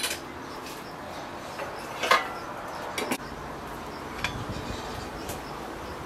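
A few light clinks and taps of a plate and fork being handled on a table, the loudest about two seconds in, over a steady quiet outdoor background.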